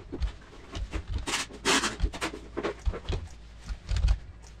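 Irregular clicks and soft knocks of a computer keyboard and mouse as values are typed and points picked, with a brief hissy rush about a second and a half in.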